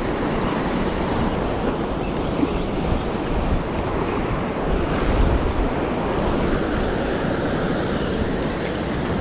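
Ocean surf breaking and washing against a rocky shore, with wind buffeting the microphone. A steady rushing noise that swells a little about halfway through.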